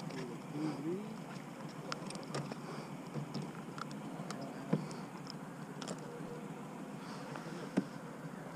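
Scattered light clicks and knocks from handling a freshly caught speckled trout and fishing line aboard a plastic kayak, over a steady low hiss. The loudest knocks come about halfway through and near the end.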